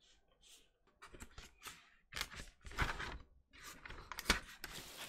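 Cardboard record sleeve handled and a vinyl record slid out of it: a run of irregular paper-and-cardboard scrapes and rustles, louder around the middle and near the end.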